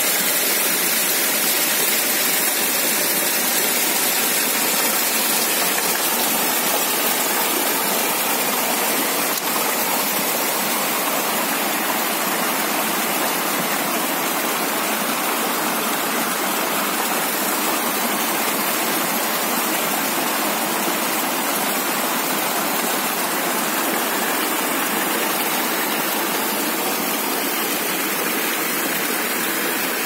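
Water pouring over rocks in small cascades and rushing along a shallow stream: a steady, unbroken splashing rush.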